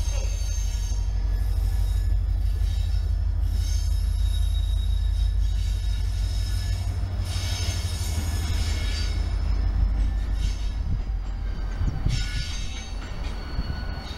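Renfe Mercancías diesel locomotive running along station tracks: a steady low engine rumble, with high wheel squeal coming and going several times as it moves away over the yard's rails.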